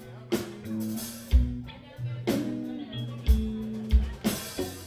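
Live blues-rock band playing an instrumental passage. Electric guitar chords are struck about every two seconds over bass, with kick drum and cymbal hits from the drum kit.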